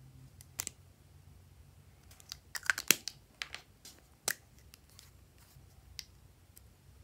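Short sharp clicks and taps of a lipstick case being handled: the cap pulled off and the tube turned in the fingers, with a quick cluster of clicks about two to three seconds in and single clicks after.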